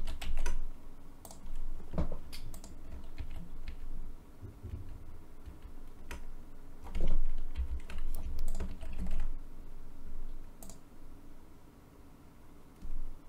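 Typing on a computer keyboard: irregular keystrokes and clicks with short pauses, some landing as dull thuds, thinning out near the end.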